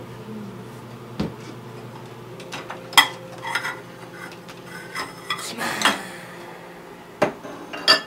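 Ceramic bowls and a metal spoon clattering as they are taken from a dishwasher rack and set down on a countertop: a string of irregular clinks and knocks, the sharpest about three seconds in.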